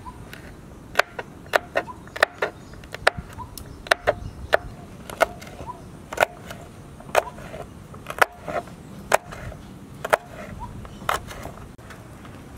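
Kitchen knife chopping green beans on a wooden cutting board: sharp, irregular knocks about twice a second, stopping near the end.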